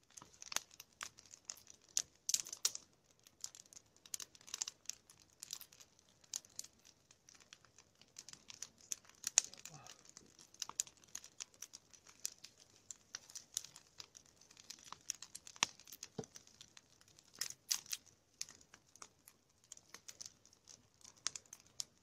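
Nodya (long-log campfire) burning, with dense irregular crackles and snaps from the wood over a steady hiss of flame.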